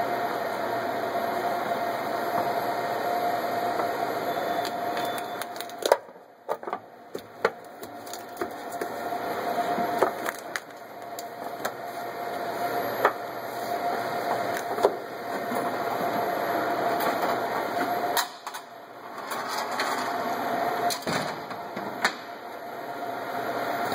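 A steady mechanical hum with a whine, dropping out about six seconds in and again near the end before coming back, with scattered clicks and knocks.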